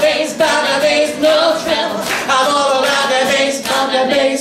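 A man and a woman singing together in long held notes, moving to new notes a few times.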